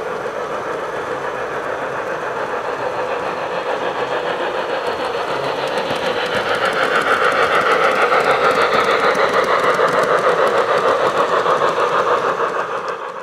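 G-gauge model train running along the track and passing close by, with a rapid, even rhythmic clicking that grows louder as it nears.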